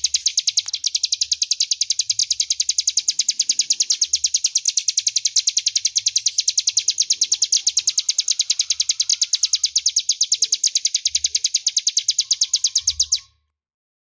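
Ciblek gunung, a prinia, singing loudly: a fast, unbroken string of sharp high chirps, many each second, that stops abruptly near the end.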